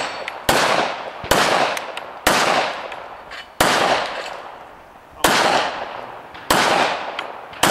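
A handgun fired at a steady pace, about seven shots roughly a second apart with a longer pause near the middle, each followed by a ringing echo. The shooter calls his ammunition underpowered.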